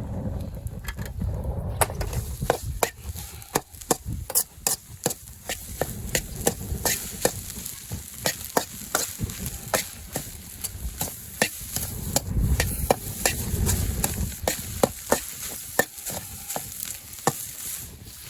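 Fried rice stir-frying in a two-handled wok: a utensil scrapes and knocks against the wok many times, irregularly, over a steady sizzle.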